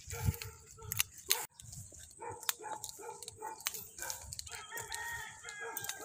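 A rooster crowing once, a pitched call of about a second and a half starting past the middle, over scattered faint clicks.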